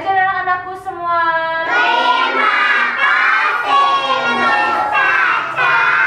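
A group of young children singing together in chorus, holding long notes with a few short breaks between lines.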